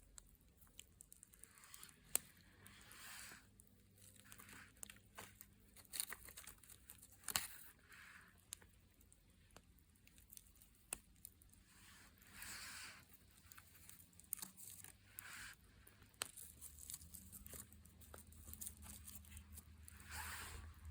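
Campfire crackling faintly: scattered sharp pops and short hissing puffs from the burning wood.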